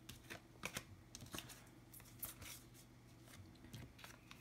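Faint handling of oracle and tarot cards: a few soft clicks and taps as cards are picked up and laid down on the tabletop.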